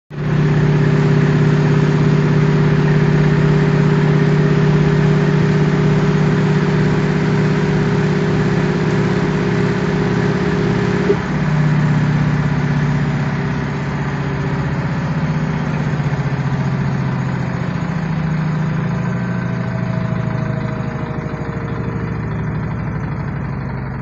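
LG top-loading washing machine running near the end of its cycle: a steady motor hum with a held whine. About eleven seconds in a click sounds, then the hum shifts pitch, wavers and slowly grows quieter.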